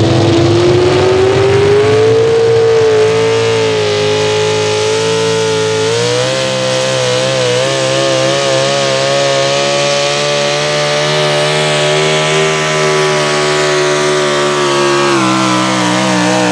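Pro stock four-wheel-drive pulling truck's engine at full throttle, dragging a weight-transfer sled. One loud, steady high-revving note climbs over the first couple of seconds, wavers about six seconds in, and drops a little near the end.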